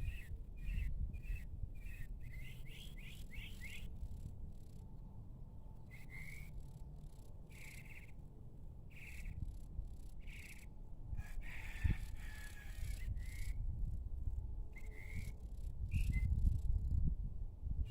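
Birds chirping outdoors in the evening: rapid short chirps at first, then single calls about once a second. A low rumble runs underneath and swells a couple of times.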